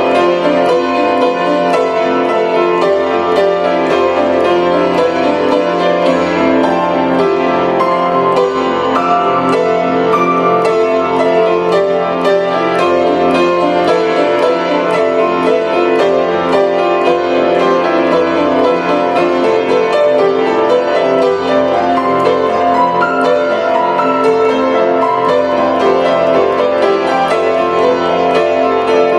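Grand piano played solo and continuously, a dense flow of quick notes over sustained chords with no pause.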